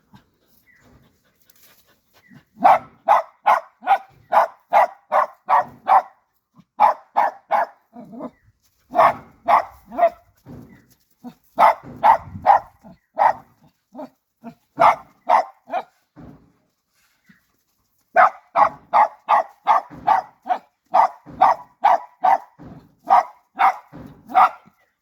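Dog barking in quick runs of about three barks a second, with short pauses between runs and a longer break of about two seconds past the middle.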